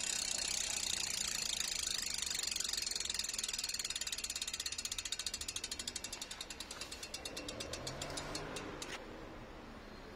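Mavic Ksyrium Equipe rear hub's freehub ratcheting: rapid pawl clicking that slows into separate clicks and stops about nine seconds in.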